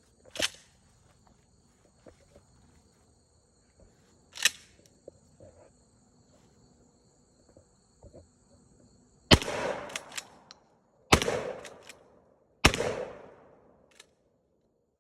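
Three 12-gauge pump-action shotgun shots firing birdshot, about one and a half to two seconds apart, each ending in a long echoing decay, with smaller clacks between them. Two sharp clacks come earlier. A steady high insect trill runs until the first shot.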